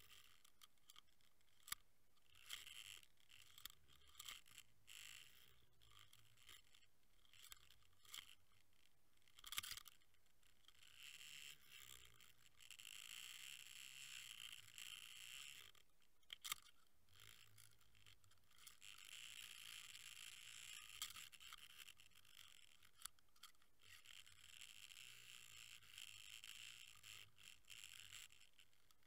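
Faint hiss and scattered sharp clicks picked up underwater by a camera riding on a fishing line above the lure. The hiss swells over long stretches as the rig moves through the water.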